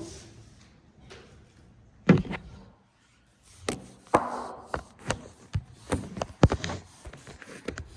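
A shipping package being handled and opened: a sharp thump about two seconds in, then a run of quick taps, clicks and rustles of packaging.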